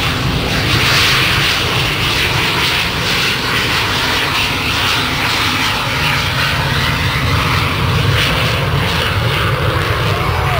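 White Knight carrier aircraft's twin jet engines running loud and steady as it moves along the runway.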